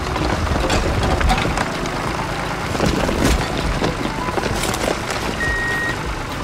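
Toy tractor's spinning cone drill boring into a pile of gravel, the stones clicking and rattling against each other over a low engine-like rumble. Near the end, a single steady high beep.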